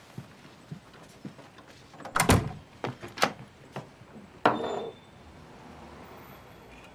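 A drink being fixed: glasses and bottles knocked and set down. There are a handful of sharp knocks between about two and five seconds in, the loudest about two seconds in, then a faint steady hiss.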